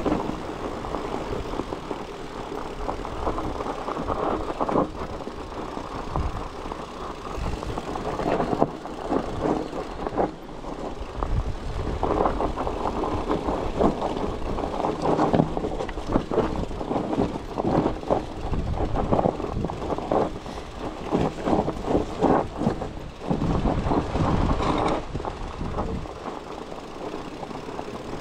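Bikepacking bicycle ridden over a rough trail: a continuous jumble of rattles and knocks over a rumble from the tyres.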